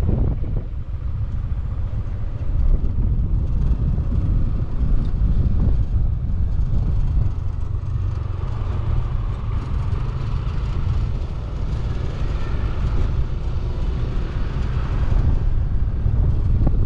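A motorcycle riding along a road: its engine running steadily under a heavy low rumble of wind on the microphone.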